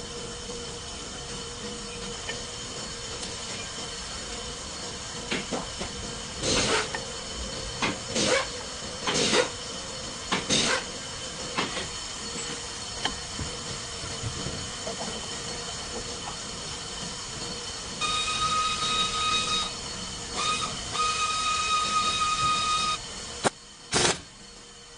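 Hyundai Sonata's front brake pads squealing: a steady high-pitched squeal with overtones lasts about five seconds and breaks off once briefly. It sits over a steady hiss, with a few short loud scrapes earlier. This is the front pad noise that the pads are being replaced to cure.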